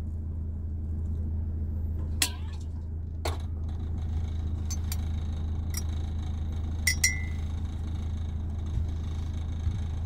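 Steady low hum with a few light clicks and knocks as things are handled at a kitchen counter, and a short high electronic beep about seven seconds in.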